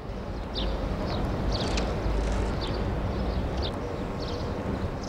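Outdoor seaside ambience: a steady low rumble with small birds chirping at a high pitch, about twice a second.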